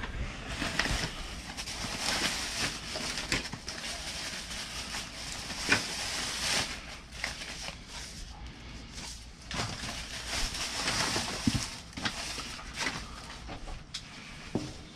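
Rummaging through discarded items in a dumpster: irregular rustling with scattered knocks and clatters as things are handled and moved.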